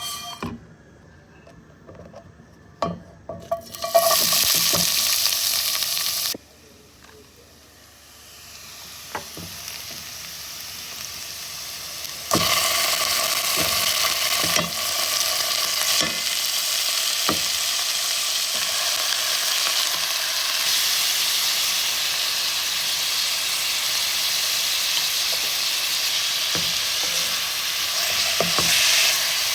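Food sizzling as it fries in a pan, with a utensil tapping and scraping against the pan now and then. A short loud burst of sizzle about four seconds in cuts off suddenly, then the sizzle builds up again and stays loud and steady from about twelve seconds in.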